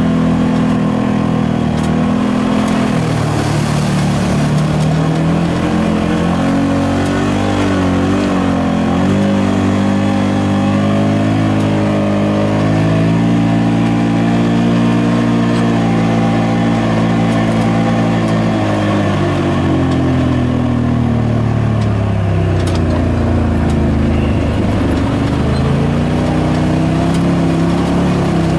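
Side-by-side UTV engine running as the machine drives a rough dirt trail, its pitch dropping and rising several times as the throttle is eased off and opened again.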